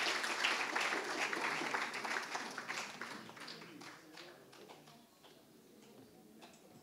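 Audience applauding, the clapping thinning and dying away about halfway through.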